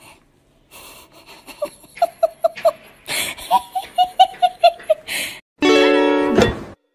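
A person giggling in two runs of quick, high-pitched bursts of laughter. Near the end a short burst of music with held notes comes in.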